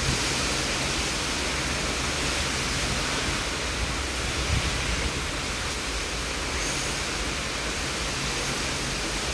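Heavy downpour of rain beating on a car, heard from inside, a steady even hiss with a low steady hum underneath.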